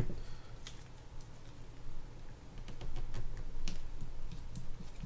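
Light, irregular clicks and taps of a small screwdriver and tweezers working the line-roller screw out of a spinning reel's bail arm, metal tool tips ticking against the small screw and parts; the clicks come more often in the second half.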